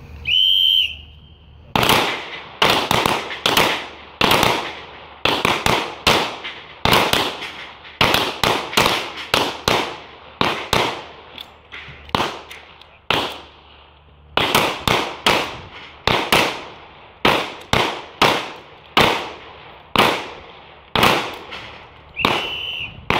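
Rapid 9mm pistol fire from a Gen4 Glock 19 shooting 115-grain round-nose ammunition at bowling pins: dozens of sharp shots, mostly two to three a second, each trailing off in a short echo, with a brief pause about two thirds of the way through. A short electronic beep sounds just before the shooting starts and again near the end.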